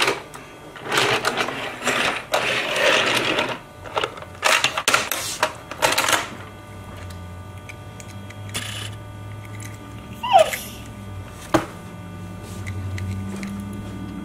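Die-cast toy cars and plastic toy hauler trucks being handled on a tabletop: rattling, clicking and clattering of small metal and plastic parts, busiest in the first six seconds, with a couple of single sharp clicks later.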